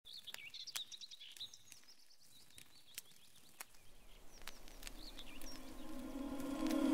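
Faint bird chirps and a few sharp ticks over a quiet background, while a low held tone swells steadily louder through the second half.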